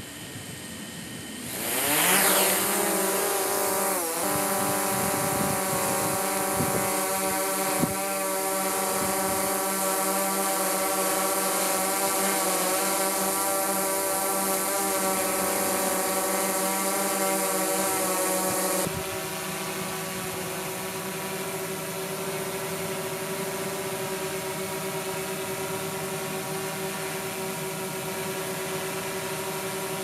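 DJI Mavic 2 Pro quadcopter's motors spinning up for takeoff about two seconds in, rising in pitch, then its propellers buzzing steadily in a close hover. About two-thirds of the way through the buzz drops suddenly to a quieter, steady level as the drone hovers farther off, at about 5 m.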